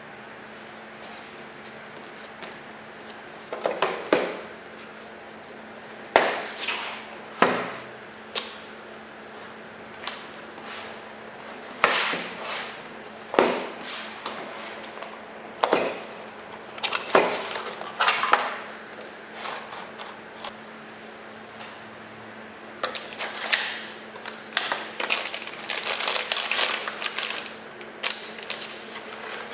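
Handling sounds of unboxing a motherboard: the box and packaging being opened and moved, with scattered knocks and rustles and a denser run of rustling and clatter near the end, over a steady low hum.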